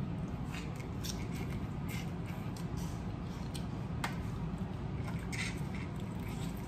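Crab legs being eaten by hand: irregular small clicks and cracks of shell and wet chewing sounds, over a steady low hum.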